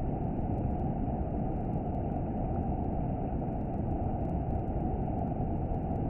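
Shallow river water rushing over stones and small rapids, a steady low rumbling noise with little high hiss.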